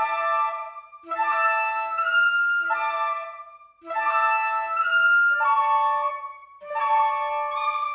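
Background music: a flute-like wind melody in short phrases of held notes.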